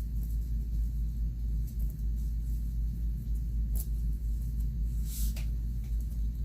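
A steady low rumble, with two brief rustles from fabric and pins being handled, a little before four seconds in and again about five seconds in.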